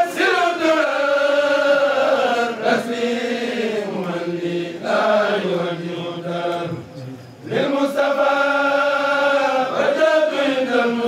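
A group of men chanting a khassida, Sufi religious poetry in Arabic, in long melodic phrases that slide slowly downward in pitch. There is a short breath pause about seven seconds in before the next phrase.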